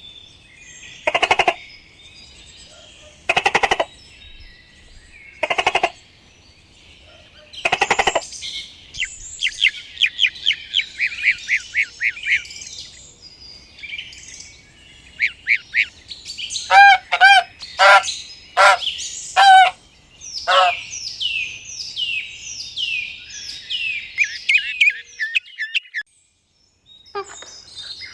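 Birds calling and singing. Four separate loud calls come a couple of seconds apart, then a fast run of high chirps. A cluster of loud calls follows around the middle, then quick descending chirps.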